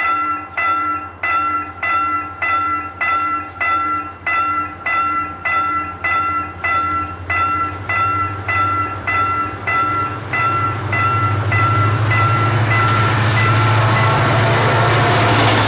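Railway level-crossing warning bell ringing steadily about twice a second, while a train approaches. From about 8 s the train's rumble and wheel noise swell, and they drown the bell as the train passes through the crossing near the end.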